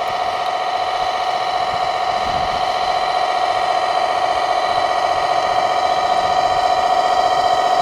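Steady, high buzzing whine of a radio-controlled model machine's electric drive, holding one pitch and slowly getting a little louder.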